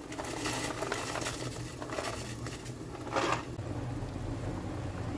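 Water boiling hard in a steel pot with sweet corn kernels just tipped in, a steady bubbling. A brief louder burst of noise comes a little over three seconds in.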